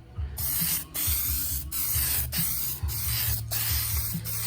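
Aerosol spray can of sealer primer hissing in short passes, starting about a third of a second in and broken by brief pauses roughly every half second to a second as the nozzle is released between strokes.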